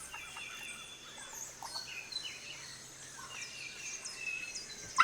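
Forest birds calling: many short whistled chirps and notes from several birds over a faint steady background, with one louder, sharper call at the very end.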